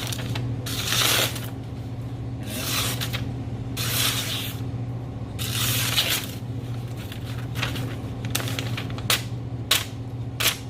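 A steel knife blade making a series of scraping strokes, each a short hiss, the later ones shorter and sharper, over a steady low hum.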